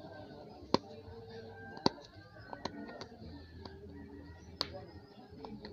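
Several sharp, irregular clicks as a small metal tool picks and pries at the centre of a loudspeaker's paper cone around the voice coil, loudest about a second and two seconds in. Faint music plays underneath.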